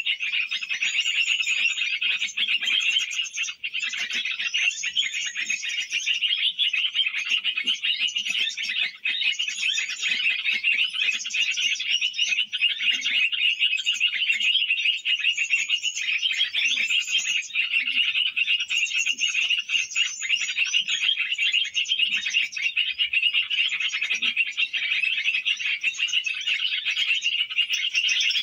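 Dense, continuous chorus of small birds chirping, with a short high call repeating every second or two over it.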